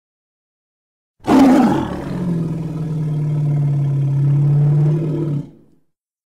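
A single long gorilla roar. It starts abruptly a little over a second in with a loud burst that drops in pitch, settles into a steady low held note, and fades out about five and a half seconds in.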